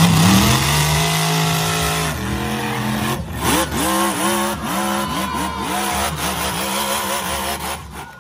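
Monster truck engine revving hard. It climbs in pitch and holds high for a couple of seconds, then blips up and down repeatedly, about twice a second.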